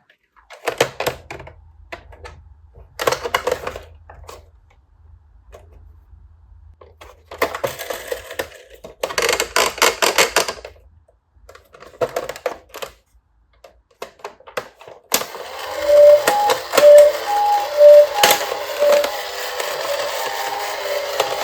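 Toy police cars clattering and rattling as they roll down a slope, in several separate bursts. About fifteen seconds in, a repeating electronic beeping tune of short notes at two pitches starts, with sharp clicks over it.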